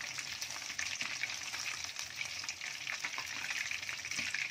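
Cornflour-battered fish pieces deep-frying in hot oil in an aluminium wok: a steady sizzle with constant crackling. A slotted spatula stirs and turns the pieces in the oil.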